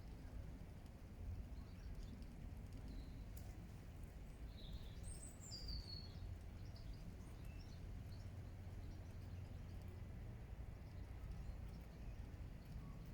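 Faint, high bird chirps, a short cluster of them about four to six seconds in, over a steady low background rumble.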